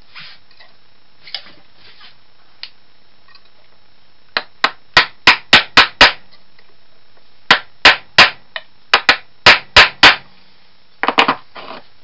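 Hammer blows on metal as parts of a Roto window corner drive are tapped into shape. There are two runs of sharp strikes, about three or four a second: the first starts about four seconds in, the second follows a short pause, and a few lighter knocks come near the end.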